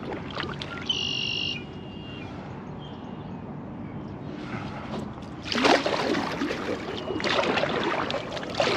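Water splashing and rushing against a kayak as it moves, loudest from about five and a half seconds in. A bird calls briefly about a second in.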